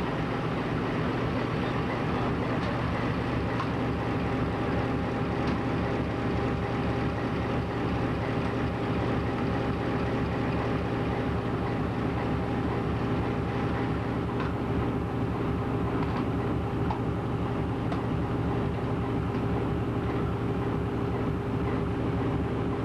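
GE U20C diesel-electric locomotive's 12-cylinder diesel engine and main generator running steadily, heard close up through the open engine-compartment doors, with a few steady tones held over the engine noise.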